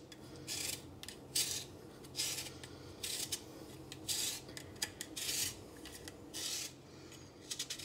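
Cucumber being twisted through a Tupperware Handy Spiralizer with its tagliatelle cone, the blade rasping through the flesh in short strokes about once a second as it cuts cucumber ribbons.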